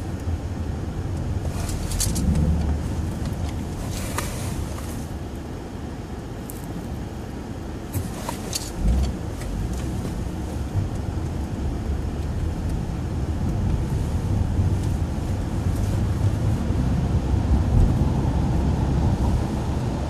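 Steady low rumble of a moving car's engine and tyres heard from inside the cabin of a 2011 Acura TSX, with a few brief sharp clicks or scrapes about 2, 4 and 8 seconds in.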